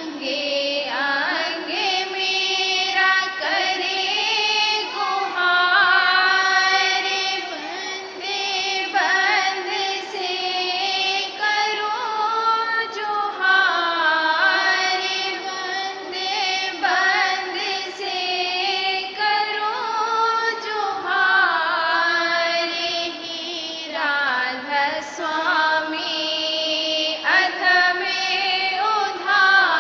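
A high voice sings a Radhasoami devotional hymn (shabd) to music, in long held notes that slide between pitches, with no pause.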